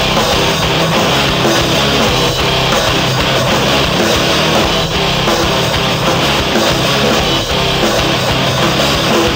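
Background rock music with guitar, playing steadily and loud.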